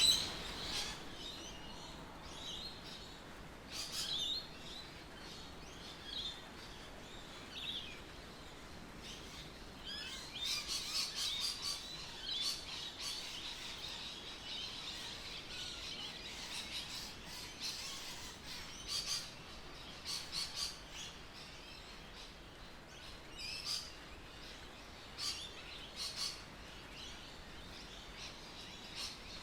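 Bird chirps and calls, high and short, coming in scattered bursts over a faint steady background.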